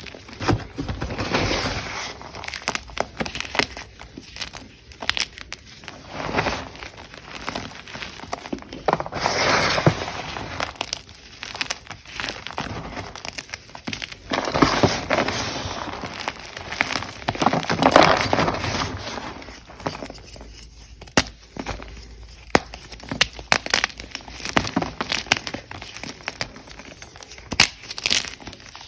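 Blocks of Ader gym chalk being crushed: repeated crunching and crackling that swells every few seconds, with many sharp snaps in between.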